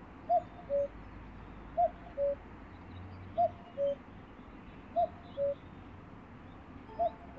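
Common cuckoo calling its two-note "cuck-oo", a higher note dropping to a lower one. The call comes five times, about every one and a half seconds.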